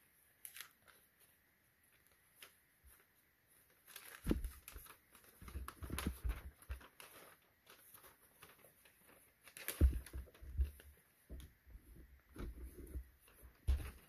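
Paper instruction leaflet rustling and crinkling in irregular bursts as it is unfolded and handled, with a few dull thumps.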